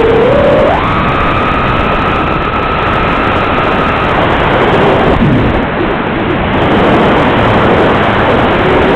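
X250 quadcopter's motors whining under a loud, harsh rush of noise. The whine jumps sharply up in pitch about a second in and holds, then drops and wavers around the middle, and rises again near the end as the throttle changes.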